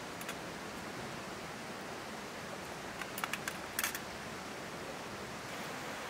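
Steady rushing of a stream flowing past, with a quick cluster of light clicks about three to four seconds in.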